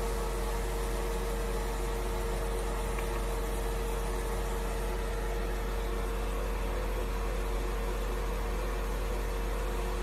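Steady mechanical hum of a small motor or fan: a constant mid-pitched tone over a low drone and hiss, unchanging throughout.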